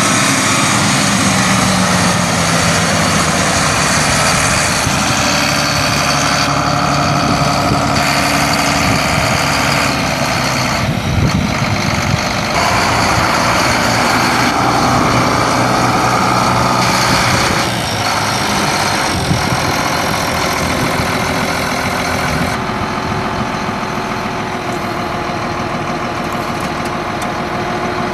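Allis-Chalmers 8050 tractor's 7.0 L six-cylinder turbo diesel engine running, mostly at a steady idle. The sound changes abruptly every few seconds.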